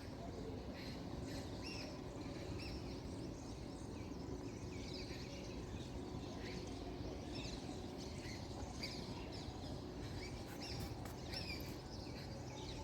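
Small birds chirping, short calls repeated every second or so, over a steady low background rumble of outdoor noise.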